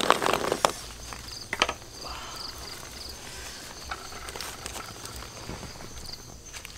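Quiet outdoor background with insects chirping in short, high trills every second or so, and a few sharp clicks in the first two seconds.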